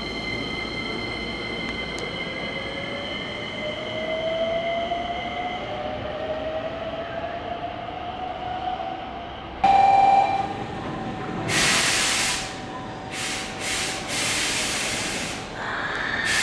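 Hankyu electric train with its motor whine rising slowly in pitch as it pulls away. About ten seconds in comes a short loud horn blast, then several loud bursts of hissing.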